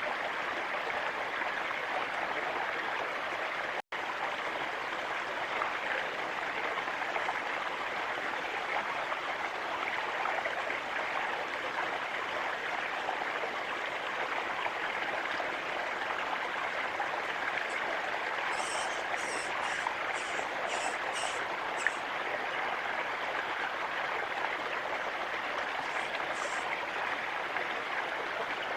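Steady rushing of flowing water, like a stream. About two-thirds of the way through comes a quick run of about eight short, high, thin bird notes, then two more near the end.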